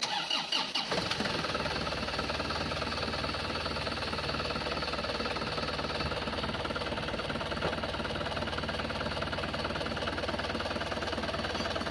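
Isuzu Crosswind engine starting, uneven for about the first second, then settling into a steady idle. It is run as a sound check of the newly welded-in exhaust flexible pipe.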